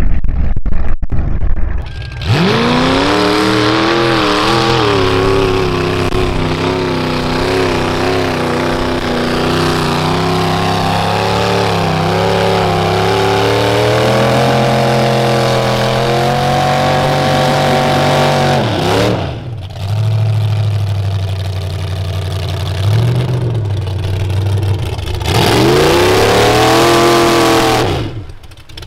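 Mud-bog truck engine revving hard at high rpm with the pitch wavering, after a couple of seconds of loud rushing noise. It lifts off about two-thirds of the way through, blips once, then revs hard again and drops away near the end.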